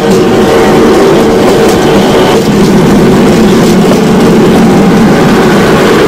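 Motorrodillo, a motorcycle-powered rail cart on ball-bearing wheels, running along railway track: the motorcycle engine runs steadily while the metal wheels click and rattle on the rails.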